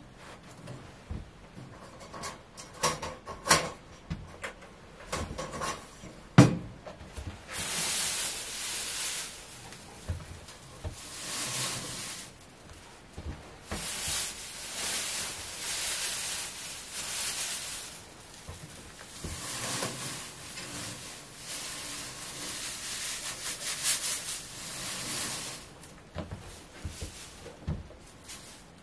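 Dry hay rustling in long bouts as it is handled and pushed into a wire rabbit cage. It is preceded over the first several seconds by clicks and rattles of the wire cage and its dish, with a sharp knock about six seconds in.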